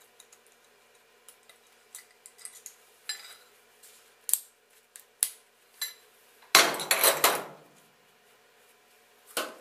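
Aluminium injection-mould pieces clinking and scraping as they are handled by gloved hands: scattered light metal clicks, a louder stretch of clattering about two-thirds of the way through, and one more knock near the end.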